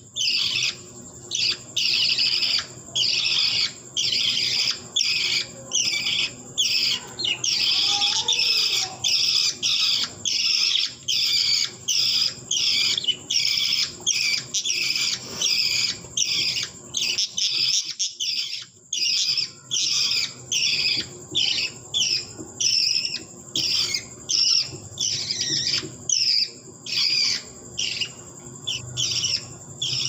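Budgerigar chick giving rasping begging calls, repeated about twice a second without a break.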